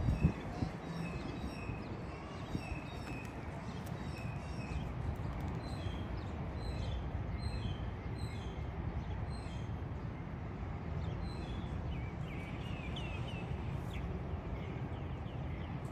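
Small birds chirping in short repeated calls over a steady low background rumble, with a few rising chirps near the end.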